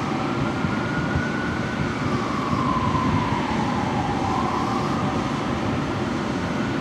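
Fire truck siren on a slow wail, its pitch rising, falling and rising again, over a steady low rumble.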